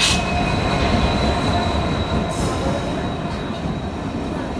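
A diesel-hauled passenger train runs into the station alongside the platform: the locomotive and then the coaches roll past with a steady low rumble and a thin, steady high wheel squeal. There is a brief hiss about two seconds in.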